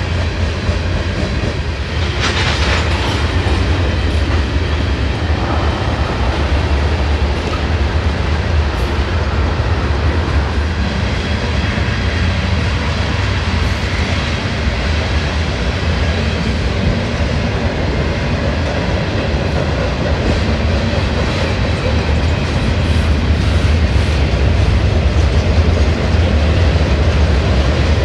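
Freight train cars rolling past close by: a steady rumble of steel wheels on rail with some clatter. There is a brief sharper noise about two seconds in, and it grows a little louder near the end as boxcars pass.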